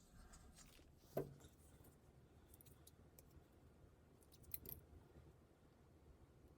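Near silence, with one faint knock about a second in and a few light clicks a little later, from hands working Teflon tape onto a gas fitting.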